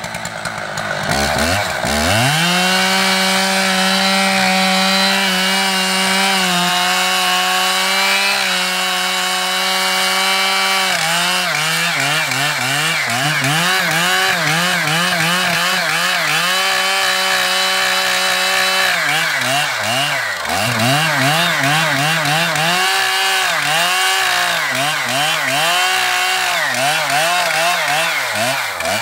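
Stihl MS 880 two-stroke chainsaw with a 50-inch bar revving up to full throttle about a second in and cutting steadily through a large log. From about halfway, the engine pitch dips and recovers again and again as the chain bogs under the load of the cut, with one deeper drop a little past two-thirds of the way.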